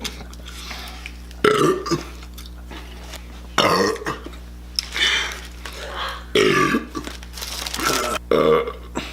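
A man belching loudly again and again, about six deep pitched belches roughly a second apart, from a stomach full of cheeseburgers.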